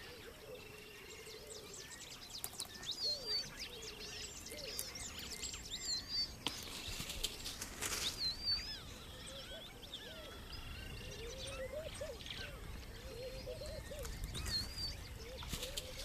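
Bush ambience: several birds calling, with short high chirps and lower wavering calls scattered throughout, over a faint steady hiss, with a few brief clicks or rustles.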